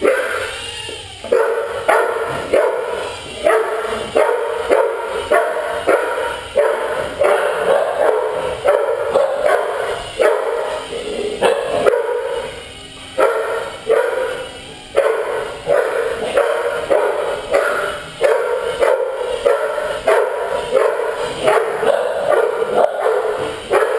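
Dogs barking over and over, roughly once a second, as they chase a small indoor quadcopter.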